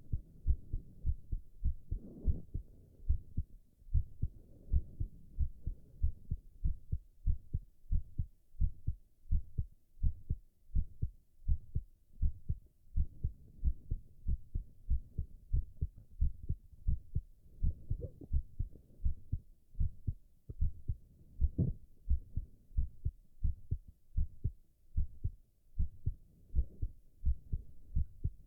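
A man's heartbeat recorded close up: steady, even low thumps in a continuous rhythm. A few louder stomach growls rise over the beats, about two seconds in and again past the middle.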